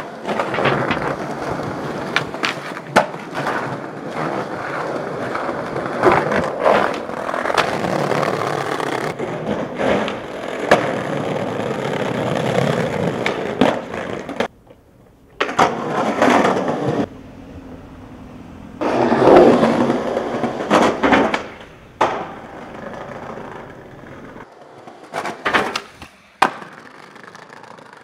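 Skateboard wheels rolling on street pavement, with sharp clacks from the board's tail pops and landings. A long run of about fourteen seconds comes first, then shorter bursts with quieter gaps between them.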